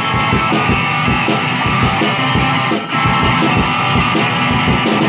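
Rock song in an instrumental passage: guitar and drums playing a steady beat, with no singing.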